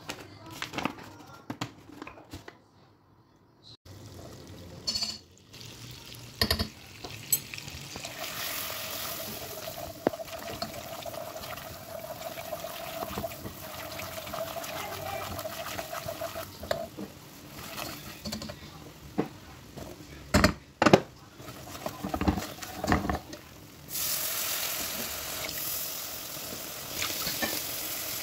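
Kitchen handling sounds: a spoon scraping a bowl and ceramic dishes being knocked and set down, in scattered sharp clicks and knocks. A steady rushing noise runs through the middle and comes back brighter and hissier near the end.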